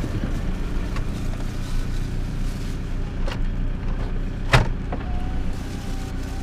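Car engine idling steadily, heard from inside the cabin, with a few sharp clicks, one louder about four and a half seconds in. A faint steady whistle-like tone joins near the end.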